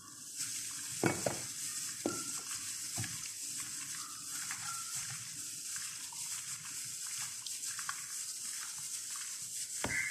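A hand in a plastic glove mixing raw chicken breast pieces with seasoning in a glass bowl: steady wet squishing and glove rustle, with a few light knocks against the bowl in the first three seconds and again near the end.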